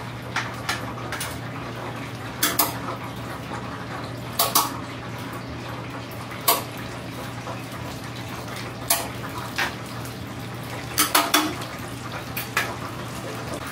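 Metal tongs clinking against a stainless steel tray, wire rack and deep-fryer rim as pieces of fried chicken are turned and lifted: sharp clinks every second or so, with a quick cluster of three or four about two thirds of the way through. Under them runs the steady hiss of chicken frying in the oil and a low hum.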